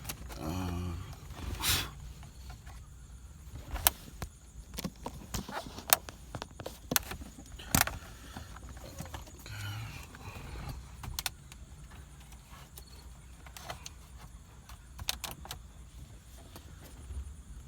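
Scattered sharp clicks and light rattles of plastic interior trim being handled and fitted around a car's gear shifter.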